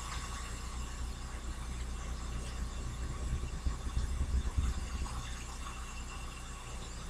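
Tap water running steadily into a sink, a low rumble with an even hiss over it.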